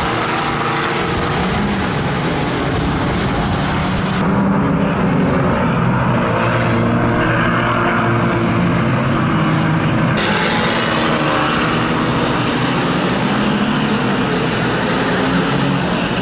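Engines of several classic saloon race cars running hard at once, a steady mixed drone of engine notes.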